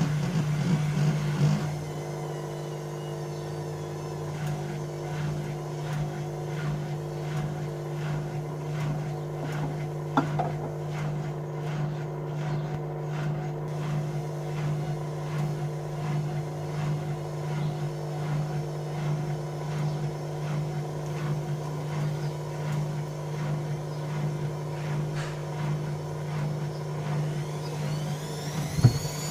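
Bauknecht Dynamic WA 1460 Sports washing machine running at a steady speed, its motor giving a constant hum with a regular pulsing as the drum turns. Near the end a whine starts to rise in pitch as the motor speeds up.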